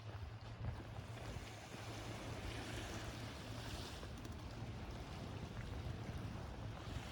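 Seaside ambience: waves washing and wind on the microphone, with a steady low hum underneath. The hiss of the water swells briefly about three seconds in.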